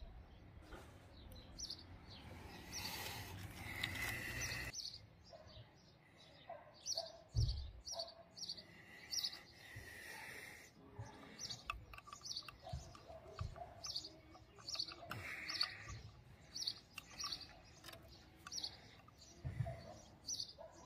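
A small bird chirping repeatedly, short high chirps about once a second. There is a stretch of rustling hiss in the first few seconds, and a few dull knocks and clicks, the loudest about seven seconds in.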